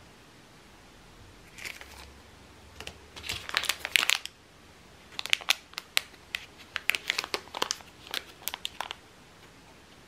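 Plastic fishing-tackle packaging crinkling as it is handled: a clear bag of round lead sinkers and a carded snap pack. It comes in several bursts of sharp crackles starting about one and a half seconds in and stopping near the end.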